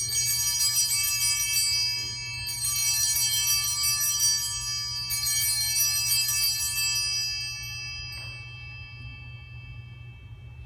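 Altar bells rung three times, about two and a half seconds apart, each ring a bright cluster of high tones that fades slowly. They mark the elevation of the host at the consecration.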